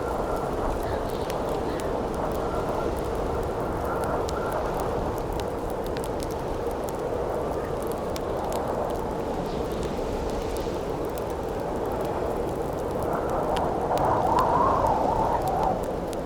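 Campfire crackling with scattered sharp pops over a steady howling wind, which swells in a gust near the end.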